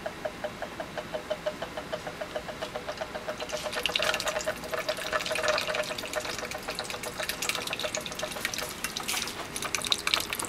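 Magnetic stirrer spinning a stir bar in a large glass beaker of BHI medium in water. It first gives a quick regular ticking, about five ticks a second. About three and a half seconds in, this gives way to a steady swirling, splashing liquid sound as the stirring speeds up into a vortex.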